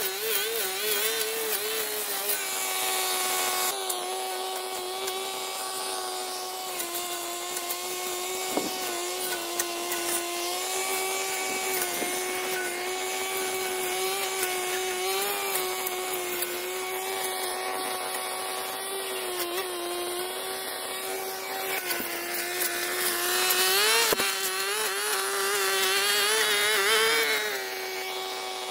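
A small petrol power-tool engine, of the kind used for cutting grass and brush, runs steadily at high speed with small wobbles in pitch. It grows louder and rougher for a few seconds near the end.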